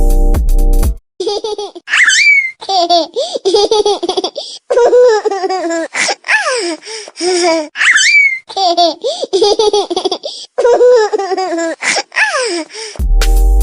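Funny ringtone of a baby laughing: high-pitched giggles with a rising squeal, the same laugh looping about every six seconds. A brief electronic beat ends about a second in.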